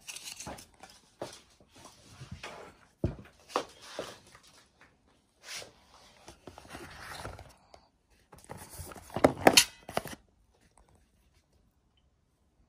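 Irregular handling noises: knocks, clicks and rustles as glass perfume bottles and their cardboard boxes are moved about on a table, with a louder cluster of clicks about nine seconds in, then silence for the last two seconds or so.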